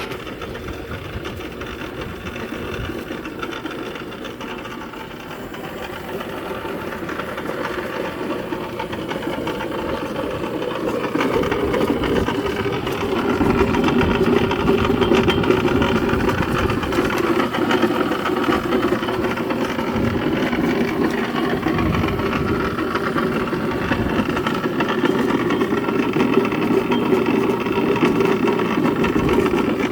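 MAKO pipe threading machine running, its motor and gear drive giving a steady, rattling mechanical drone that grows louder about twelve seconds in.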